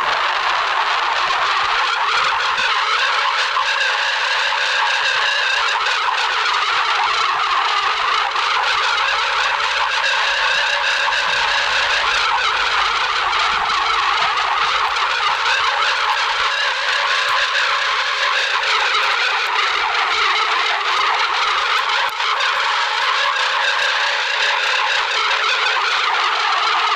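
Emergency alert alarm: a loud, harsh, noisy siren-like tone that slowly wavers up and down in pitch without a break.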